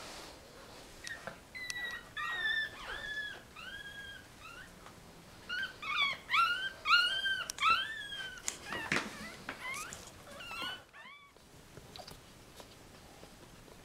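One-week-old Yorkshire terrier–Jack Russell cross puppies squeaking and whining: many short, high-pitched calls, each rising then falling, in two runs, the second louder, with a few more about eleven seconds in.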